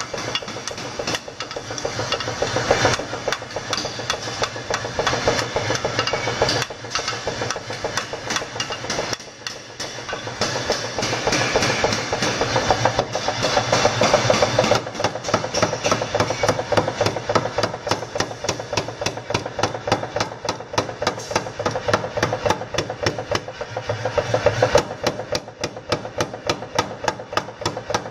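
Hammer blows on a red-hot parang (machete) blade: hand hammering on the anvil, then a mechanical power hammer striking the blade in a rapid, steady rhythm over the hum of its motor. The blows pause briefly about nine seconds in.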